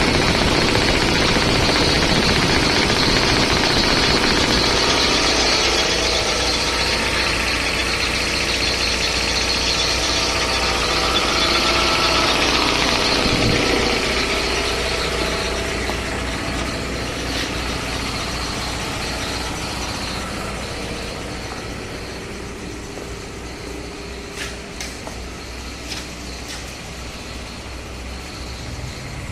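Air compressor running: a steady mechanical drone with a fast pulse and a strong hiss, slowly getting quieter through the second half, with a few sharp clicks near the end.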